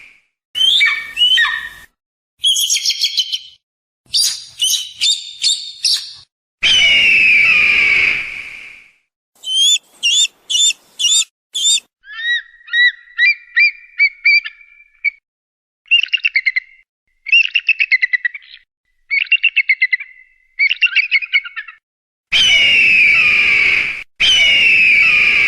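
Eagle calls, one after another with short gaps: long, harsh screams that fall in pitch, three of them (about seven seconds in and twice near the end), between quick series of high, thin chittering notes and trills.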